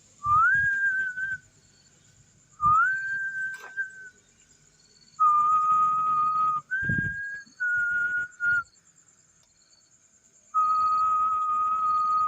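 A person whistling a series of six clear notes. The first two slide up and then hold, the rest are held level at slightly different pitches, and the last is the longest, about two seconds.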